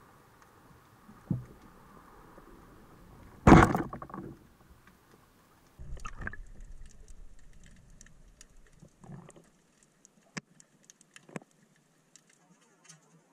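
Underwater speargun shot: one sharp, loud crack about three and a half seconds in, over a low water hiss. A rustling burst follows a couple of seconds later, then scattered faint clicks as the shaft and the speared fish move against the rocks.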